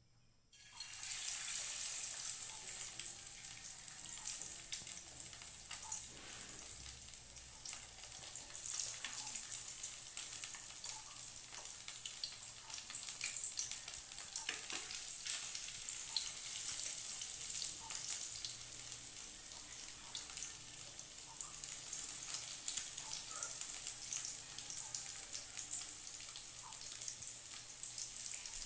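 Breaded gluten pieces deep-frying in hot oil in a wok: a steady sizzle with many small crackles, starting suddenly about a second in as the first piece goes into the oil.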